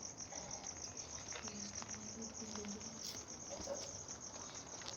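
Crickets chirping in a steady, rapid, even pulse, with a few faint clicks scattered through.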